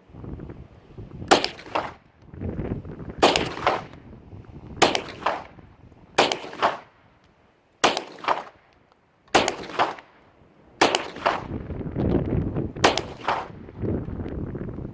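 A TNW Aero Survival Rifle in 40 calibre firing a slow, even string of eight shots, about one every one and a half to two seconds, each with a short echo. It is shooting home-cast, powder-coated 175-grain lead bullets.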